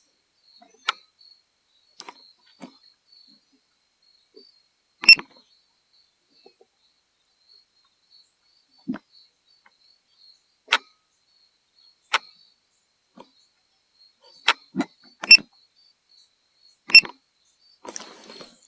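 Handling noise on a drone's remote controller: about a dozen short, sharp clicks and taps at irregular intervals with quiet between them, and a brief rustle near the end.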